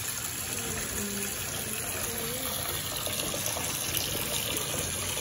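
Tap water pouring steadily into a bathtub, splashing into the shallow water already in the tub.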